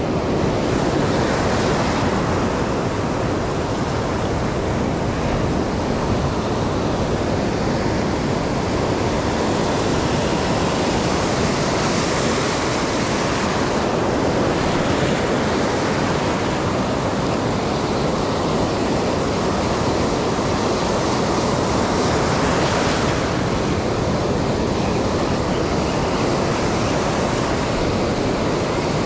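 Ocean surf breaking on a rocky shore: a steady rush of waves, swelling louder about twelve seconds in and again a little past twenty.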